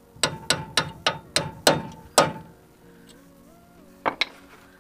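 Hammer blows on a pin punch, driving a rusted-in split pin out of the stud of a steering knuckle's upper ball joint: seven quick metallic strikes with a short ring, then two more quick taps near the end.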